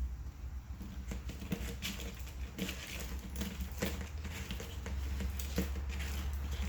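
Irregular small metallic clicks and scrapes as a bicycle chain is worked out of a bent multi-tool chain breaker.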